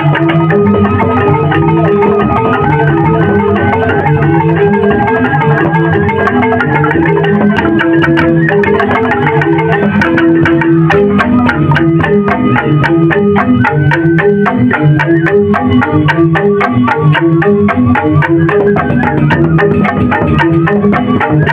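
Balinese joged bumbung gamelan playing: bamboo xylophones (grantang) ring out fast interlocking patterns over drumming. Sharp percussive strikes grow denser about halfway through.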